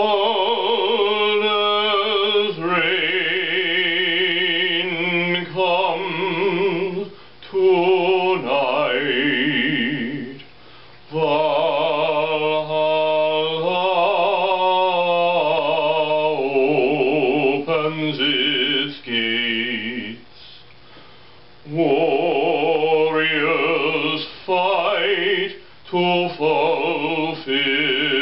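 A man singing solo and unaccompanied in an operatic style, holding long notes with a wide vibrato. The phrases are broken by short pauses, the longest about two thirds of the way through.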